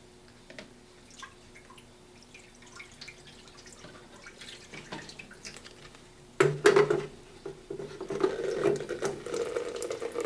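Hot water dripping faintly and then, about six seconds in, starting to splash steadily from the spray heads of Bunn coffee brewers. One spray head is clogged with lime scale and runs weaker and slower than the other.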